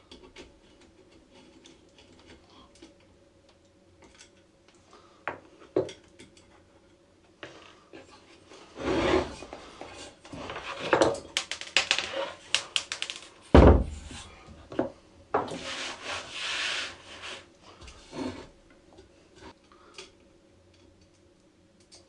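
Light clicks of a screwdriver on an electric motor's terminal screws. From about nine seconds in comes a stretch of scraping and rubbing of metal on the wooden bench, with one heavy knock near the middle, as the motor's bolts are worked loose and its parts are handled.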